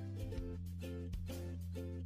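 Background music: short repeated chords over a steady bass with a regular beat.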